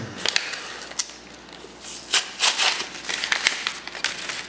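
Plastic solder package crinkling and rustling as it is handled and opened. It comes in irregular bursts with small sharp clicks, busiest in the second half.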